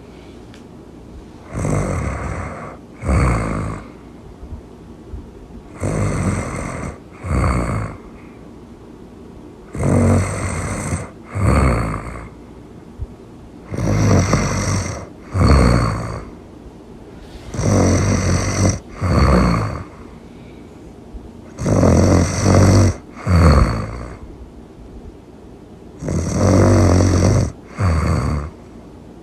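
Loud snoring in a steady rhythm: a longer snore followed closely by a shorter one, the pair repeating about every four seconds, seven times.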